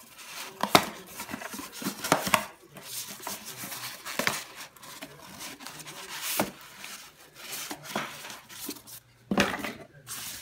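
Cardboard box and plastic wrapping being handled and pulled apart: rustling and crinkling with many sharp knocks and taps, the loudest about a second in and another cluster near the end.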